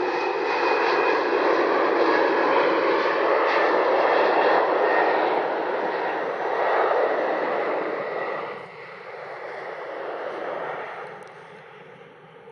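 Jet airliner engines passing close by, loud and rushing for about eight seconds, then dying away.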